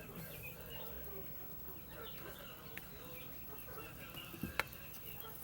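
Chickens clucking softly and intermittently while feeding, with one sharp tap about four and a half seconds in.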